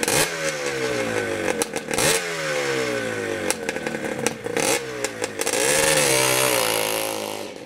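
Motorcycle engine revved with sharp throttle blips, the revs sliding back down after each one three times, then held up briefly before easing off near the end.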